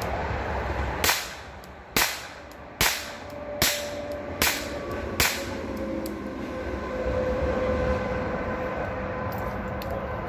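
Six shots from a Rohm RG20 .22 Short revolver fired double action, evenly spaced about a second apart, emptying the cylinder, over a steady low background rumble.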